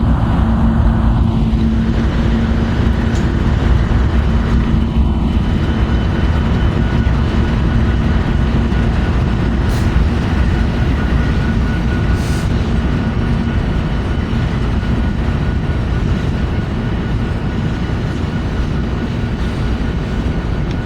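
Empty coal train rolling past: a loud, steady rumble of wheels on rail with no let-up, a low engine-like tone fading out about two-thirds through, and a thin high steady tone running through most of it.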